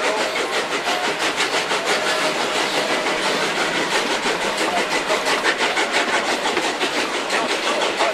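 Metre-gauge steam locomotives working hard up a steep grade, their exhaust beating in quick, even chuffs over the rumble and rattle of the carriages.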